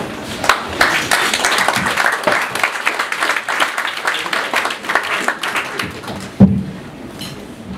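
Audience applauding: a dense patter of many hands clapping that thins out and fades over the last couple of seconds. A single loud thump comes about six and a half seconds in.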